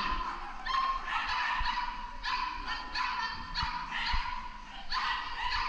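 A dog barking repeatedly in short, high-pitched yaps, about two a second, while running an agility course.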